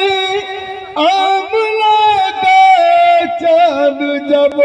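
A man singing a naat, an Urdu devotional poem, into a microphone, in long, sliding held notes.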